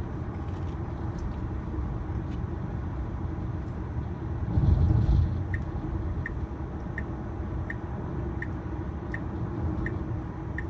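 Steady tyre and road noise inside the cabin of a Tesla Model Y, with a brief louder rumble a little before halfway. From about halfway on, the turn-signal indicator ticks evenly, about one and a half ticks a second, as the car signals for a right turn.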